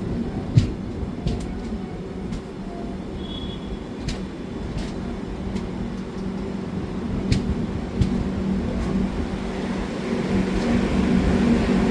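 Indian Railways train running on the track: a steady low rumble with a humming tone and occasional sharp clicks of wheels over the rails, growing louder near the end.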